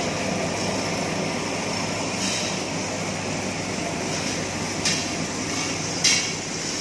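Steel wire straightening and cutting machine running with a steady mechanical din, with two sharp clacks about five and six seconds in.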